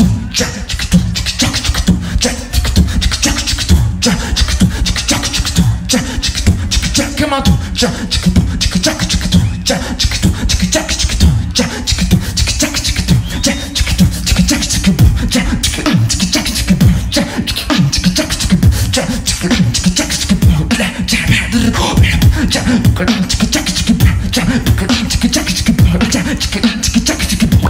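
A male beatboxer performing live into a handheld microphone: a fast, unbroken run of percussive mouth sounds over a pulsing bass line.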